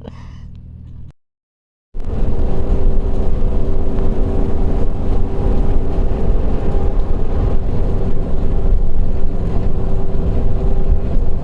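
Motorhome driving on the road: loud, steady road and engine rumble with a constant hum, starting abruptly after a brief dead-silent gap about two seconds in.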